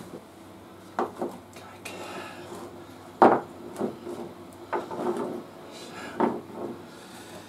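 Tools and parts being handled and set down on a workbench: a run of separate sharp knocks and clatters, the loudest a little after three seconds in.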